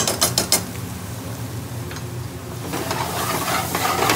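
Metal spoon clinking and scraping in an aluminium frying pan of frying onion, ginger and garlic, then louder sizzling from about three seconds in as the pans are stirred. A steady low hum runs underneath.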